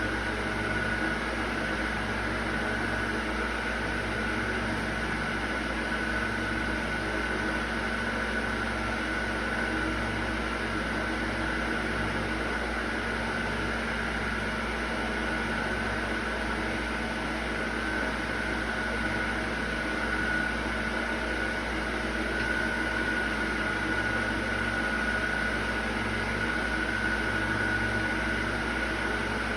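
Steady drone of a running electric appliance motor: a constant low hum under an even high whine, with no change in pitch or level.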